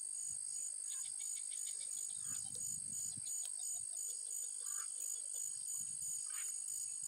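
Insects trilling: a steady high-pitched buzz, with a second note pulsing about three times a second.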